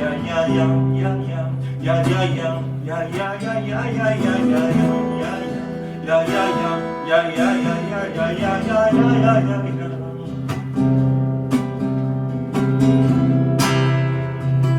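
Acoustic guitar played as an instrumental break, with strummed chords and a wavering melody line over them.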